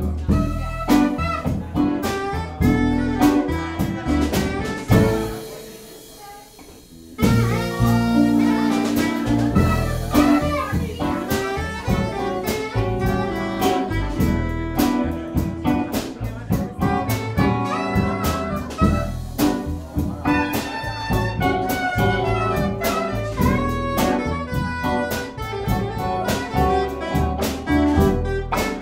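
Live jazz band playing, saxophone leading over upright bass, electric piano, drums and electric guitar. About five seconds in the music fades down, and it comes back in sharply about two seconds later.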